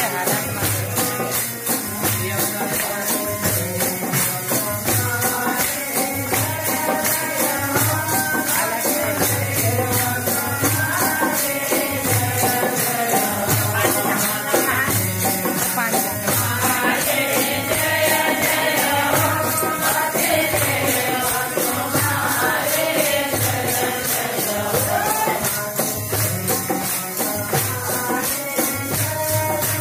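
Bhajan kirtan music: a fast, steady beat of jingling metal hand percussion over regular drum strokes, with a group singing a devotional melody.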